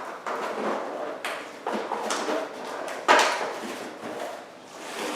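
Cardboard and plastic toy packaging being pulled apart and handled: a run of scraping, rustling knocks, the loudest about three seconds in.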